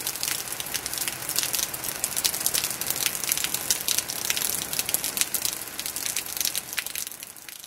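Heavy rain pattering on a hard surface close to the microphone, a dense crackle of drops that fades near the end.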